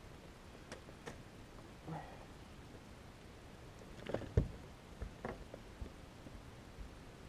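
Scattered light knocks and clicks against a kayak as a hooked fish is landed and handled in the boat, with one louder thump about four and a half seconds in.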